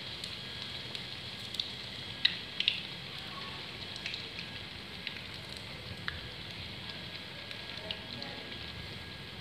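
Battered bread pakoras deep-frying in hot oil in a karahi: a steady sizzle with scattered sharp pops, the loudest a couple of seconds in.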